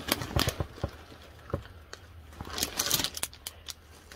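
A fabric dress being handled close to the microphone: cloth rustling with a string of sharp clicks and taps, most of them in the first second and again about two and a half to three seconds in.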